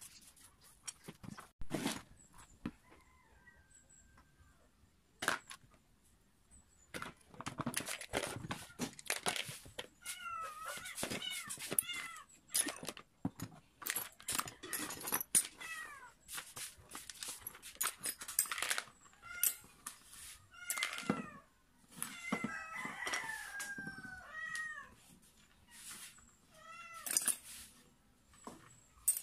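Irregular clicks and clatter of metal parts from a disassembled electric planer being handled and set down on a worktable. Groups of short animal calls sound in the background partway through and again later.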